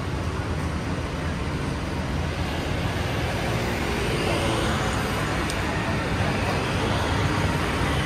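Steady road traffic noise on a city street: cars and scooters passing with a continuous rumble.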